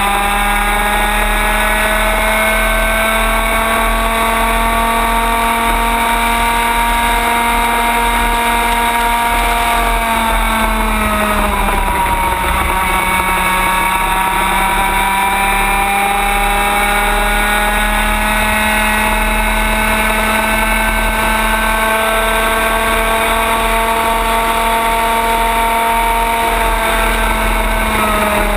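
Racing kart engine running hard at high revs, a loud steady pitched note heard onboard. The pitch drops about ten seconds in as the throttle comes off for a corner, then climbs slowly back up as the kart accelerates, easing off again near the end.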